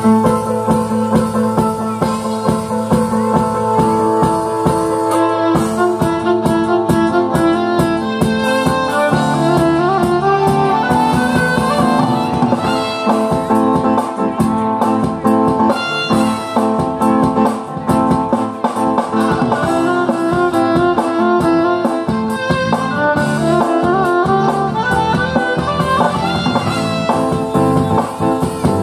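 Live instrumental music: a violin playing the melody over electronic keyboard accompaniment with a steady beat.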